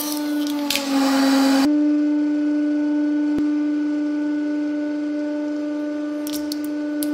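Hydraulic press running with a steady, even-pitched whine as the ram moves. In the first second and a half, plastic and chocolate crackle and crunch as a toy egg is crushed, and the whine dips slightly in pitch. Near the end, a few sharp cracks come as the ram meets a plastic toy car.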